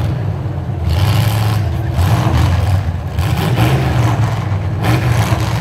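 Engines of demolition-derby pickup trucks running loud and revving in repeated surges.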